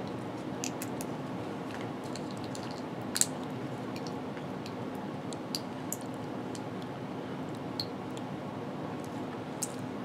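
Faint, scattered wet clicks of a person chewing a chewable supplement tablet, one a little louder about three seconds in, over a steady low hum.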